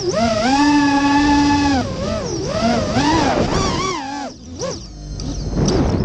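Onboard sound of a racing quadcopter's EMAX RS2205 2300KV brushless motors whining, the pitch rising and falling with throttle. After about four seconds the whine drops and breaks into short blips, with rushing noise near the end.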